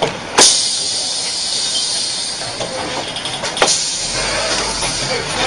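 Steady road traffic noise, with a sharp bang about half a second in and a second, weaker bang about three and a half seconds in.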